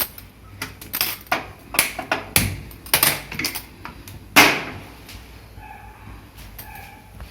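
Kitchen cookware clicking and knocking as peas are put into a pressure cooker, ending in one loud metallic clank about four and a half seconds in, followed by two short squeaks.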